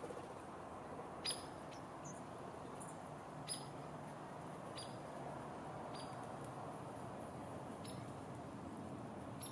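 Short, sharp, high bird calls, about seven of them at irregular intervals, the two loudest about a second in and three and a half seconds in, over a steady low background rumble.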